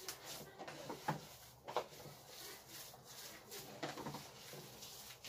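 Hands kneading a minced-meat köfte mixture in a plastic basin: a string of short, irregular soft sounds as the meat is squeezed and pressed.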